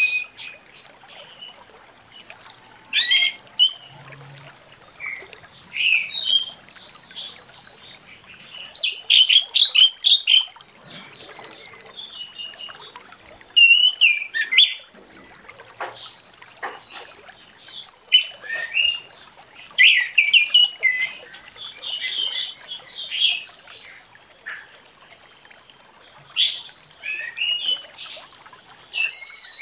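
Orange-headed thrush singing a long run of short, quick phrases of high, rapid notes, with brief pauses between the phrases.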